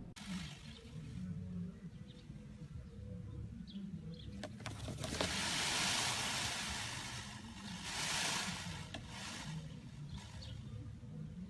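White peacock shaking its fanned tail feathers, a rustling shimmer that swells up twice, with a few faint bird chirps.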